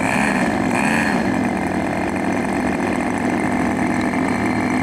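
The twin engines of a Hangar 9 B-25 Mitchell RC model running at low throttle. The pitch rises and dips briefly in the first second, then holds steady.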